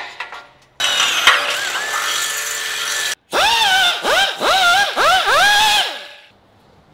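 Pneumatic drill cutting a hole through a steel frame tube. A hissing, whining cut lasts about two seconds, then after a brief break comes a run of about five whines that rise and fall in pitch as the bit bites and frees up. It stops about a second before the end.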